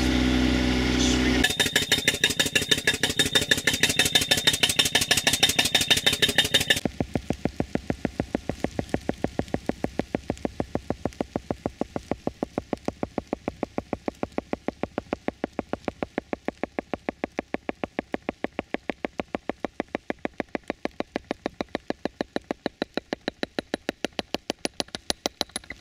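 An engine runs steadily, then about a second and a half in a pneumatic piercing tool (a 'torpedo' soil mole) starts hammering through the ground in rapid, evenly spaced knocks with a hiss of air. About seven seconds in the knocks become softer and duller and carry on steadily.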